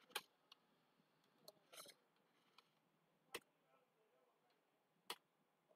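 Sparse clicks of computer keys: about half a dozen single taps spread over a few seconds, against near silence.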